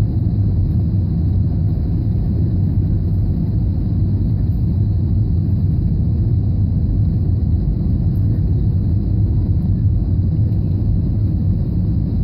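Steady low cabin rumble of an Airbus A320 on final approach, its engines and the airflow over the airframe heard from inside the passenger cabin.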